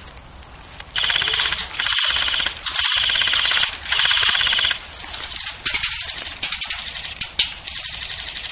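Airsoft gunfire: four rapid full-auto bursts in quick succession, followed by a scatter of sharp single shots.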